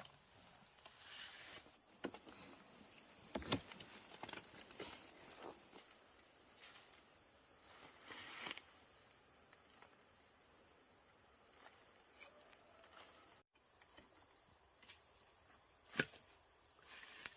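Faint steady chirring of insects, with a few sharp knocks and light rustling scattered through: one a few seconds in and two near the end.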